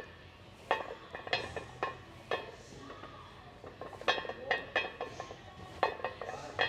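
Iron barbell weight plates clinking and clanking: a string of sharp, irregular metallic knocks, some ringing briefly.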